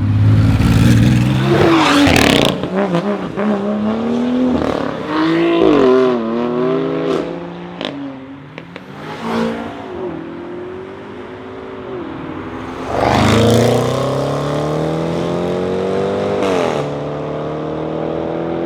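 BMW M5 F90 Competition's stage-2 tuned twin-turbo V8 accelerating hard. The pitch climbs and drops sharply at each upshift, with a few sharp exhaust cracks between pulls. After a short easing off it pulls hard again about two-thirds in, shifting up once more near the end.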